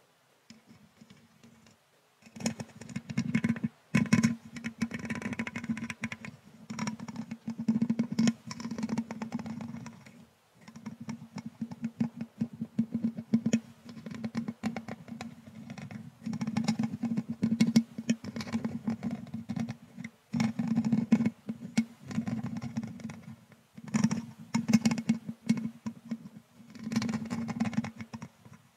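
A thin brush stroked back and forth over a microphone's mesh grille, close up: scratchy, crackly rubbing in bursts of a few seconds with short pauses between, starting about two seconds in.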